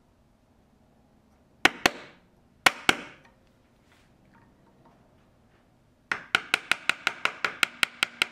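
Wooden mallet striking a chisel, chopping out a small mortise: two pairs of sharp knocks about a second apart, then a quick run of about fourteen taps, some seven a second, near the end.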